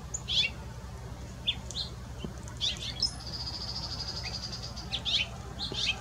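Male house finch singing: a run of short, quick chirping notes with a rapid trill lasting about two seconds midway, over a steady low hum.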